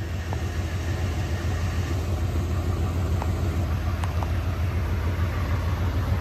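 1997 Ford F-350's 460 cubic-inch (7.5 L) V8 running at a steady idle, a low, even sound with no revving.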